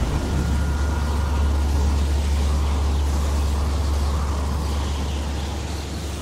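Deep, steady low rumble from a cinematic soundtrack, with a soft airy swell above it around the middle.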